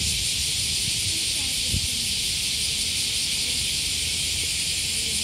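Cicadas singing in a steady, high-pitched drone that carries on without a break. A brief low knock comes a little under two seconds in.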